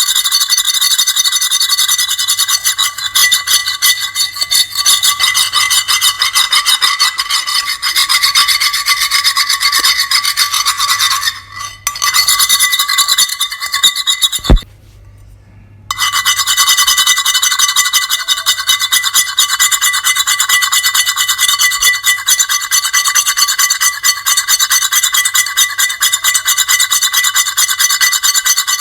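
Continuous high-pitched grating scrape with squealing tones. It dips briefly about eleven seconds in, and a sharp click about fourteen seconds in is followed by a pause of about a second and a half before the scraping resumes.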